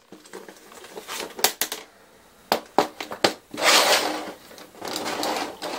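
Aluminium-framed microphone case handled and set down on a wooden floor: a few sharp knocks and clicks, then a longer scrape about four seconds in as it is pushed across the floor, and another shorter scrape near the end.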